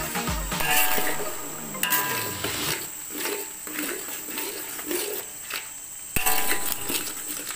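Metal spatula scraping and clacking against a wok as egg and sliced sausage are stir-fried, with oil sizzling steadily underneath.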